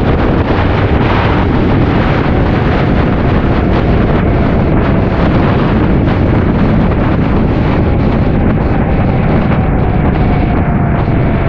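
Wind buffeting the microphone on a moving motorcycle, a loud steady rush with the bike's running noise underneath.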